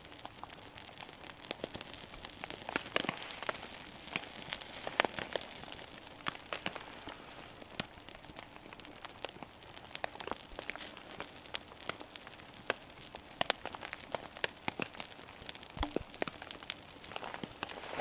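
Small kindling fire crackling, with irregular sharp pops and ticks: wet pine twigs burning in a small flame atop an upside-down fire lay. Twigs are shifted by hand now and then.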